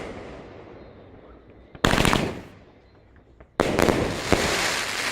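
Fireworks exploding: a loud bang about two seconds in, then another about a second and a half later that trails into a long crackling hiss with a sharp pop inside it.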